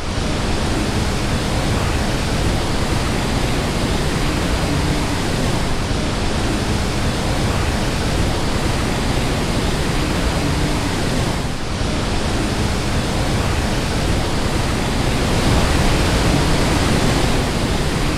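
Loud, steady rush of a waterfall and fast-flowing river water, swelling slightly about three-quarters of the way through.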